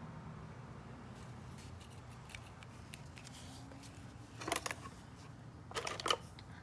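Faint scratching of a felt-tip marker on notebook paper, then two short clusters of clicks and rustles, about four and a half and six seconds in, as the camera is handled and moved close to the drawing.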